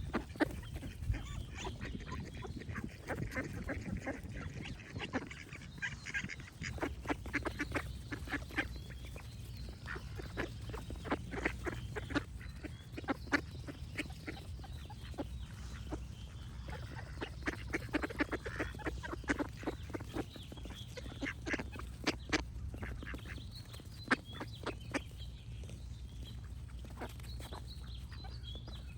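Ducks quacking in repeated runs of short quacks, with birds singing faintly in the background over a steady low rumble.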